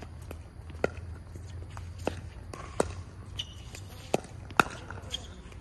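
Pickleball paddles hitting a plastic pickleball back and forth in a rally: about six sharp pops, irregularly spaced, with the loudest near the end.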